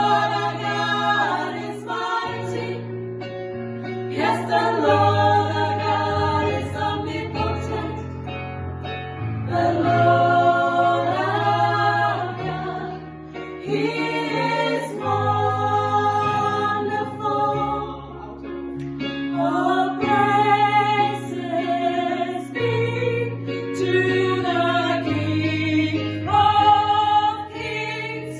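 A gospel choir singing in harmony over a steady instrumental bass, in sustained phrases that swell and change every few seconds.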